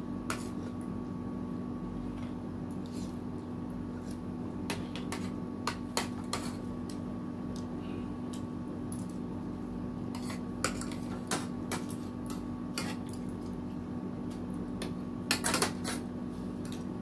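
Metal spoons and forks clinking and scraping against ceramic plates and a soup bowl in scattered, irregular clicks, a few in quick succession near the end, over a steady low hum.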